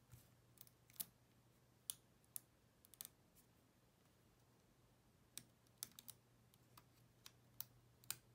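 Sparse light clicks and taps of tools and fingers against an opened iPod Touch's casing and battery, about a dozen scattered irregularly, over a faint steady low hum.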